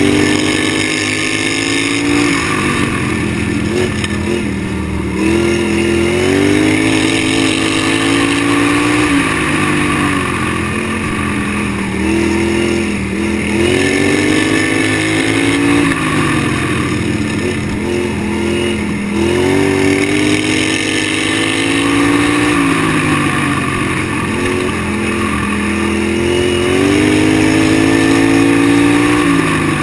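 Racing lawn mower's engine running hard, its pitch climbing and dropping again every few seconds as it accelerates and eases off around the dirt oval.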